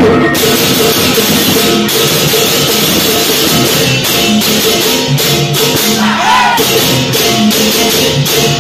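Balinese gamelan baleganjur playing loudly: kendang drums beating, ceng-ceng hand cymbals clashing in a dense shimmering wash, and small kettle gongs and hanging gongs ringing. The cymbals come in hard about half a second in.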